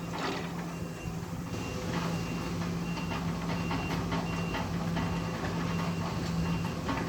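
Sumitomo SH210-6 hydraulic excavator's diesel engine running steadily under a repeated high warning beep, about three beeps every two seconds, with scattered knocks and clanks of the machine working.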